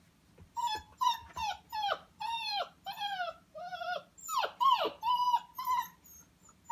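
Five-week-old Newfypoo puppy whining in a rapid string of short, high-pitched cries, many sliding down in pitch, begging for food it is hungry for.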